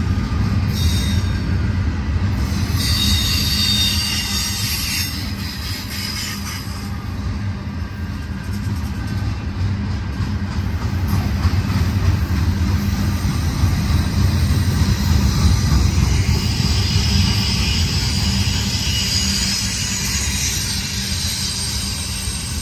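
Union Pacific double-stack intermodal freight train rolling past close by: a steady low rumble of steel wheels on rail. A high-pitched wheel squeal comes in about three seconds in and again from about sixteen seconds, lasting several seconds each time.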